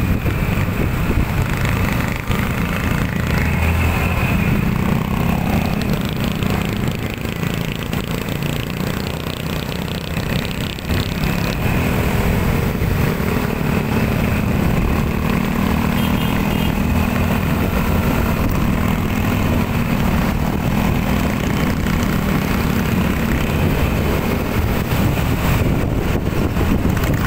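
Motorcycle engine running while riding in slow, dense traffic, with the noise of surrounding cars and motorcycles.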